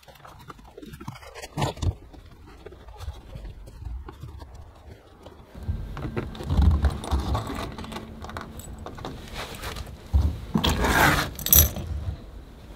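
Screwdriver and small metal parts clinking, with scraping and rustling as screws are taken out of a carpeted boot trim panel. The loudest scraping comes near the end.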